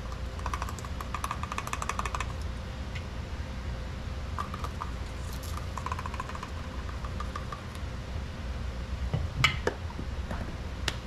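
A metal measuring spoon scraping and clicking inside a small spice jar, in quick runs of tiny ticks, as cream of tartar is scooped out. A sharper knock comes near the end.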